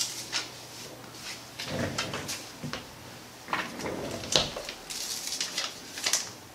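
Kinesiology tape being handled and applied to a foot: an irregular series of short crackles and scrapes as the tape is peeled and rubbed down, the sharpest about four seconds in and again about six seconds in.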